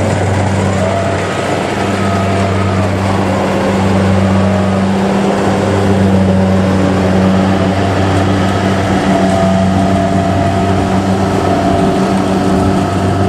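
Kubota DC70 combine harvesters' diesel engines running steadily while cutting rice: a loud, continuous engine hum with slight shifts in pitch.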